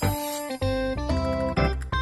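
Background music: an upbeat tune of stacked pitched notes with a bass line, changing chords several times a second.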